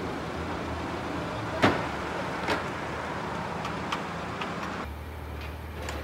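Two car doors of a Cadillac sedan slamming shut, the first one louder, under a steady engine idle rumble; a few light clicks follow later.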